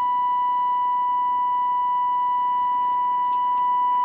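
Dashboard warning tone of a 1979–1987 Chevrolet diesel pickup sounding with the ignition key switched on before cranking: one steady, unbroken high electronic tone.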